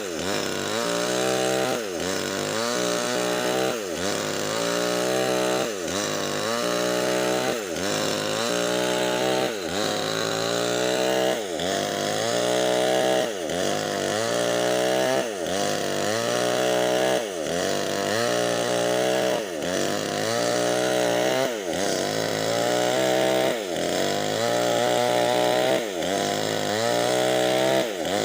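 Nixon two-stroke chainsaw with a 25-inch bar running under heavy load as it rips lengthwise through a Medang log; the engine pitch dips and recovers about every two seconds.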